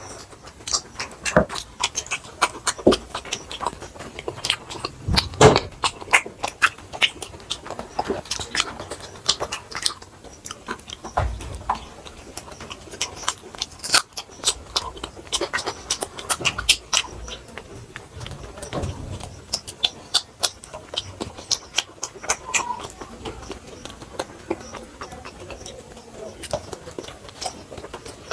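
People eating flatbread with chana masala: a steady run of chewing, wet mouth smacks and small clicks.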